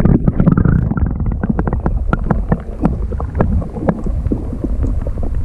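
Microphone handling noise: a low rumble with many irregular clicks and knocks.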